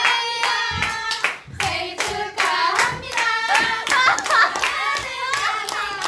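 A group of young women singing together and clapping in time, about three claps a second.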